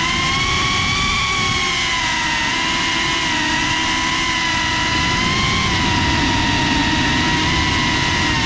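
FPV quadcopter's electric motors and propellers whining close to the onboard GoPro, a steady pitch that sags and lifts slightly with the throttle.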